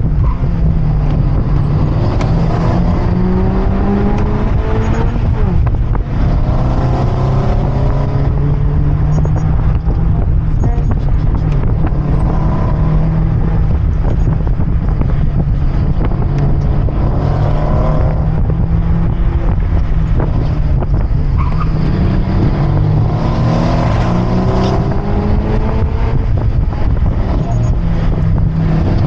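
Car engine driven hard, pulling up in pitch again and again and dropping back between pulls, over a constant loud rumble and road noise.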